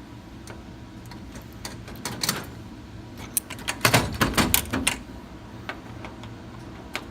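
Quick clicks and rattles from a tubular lock pick and tubular lock being handled and worked. A few scattered clicks come first, then a dense, louder run of them about four seconds in.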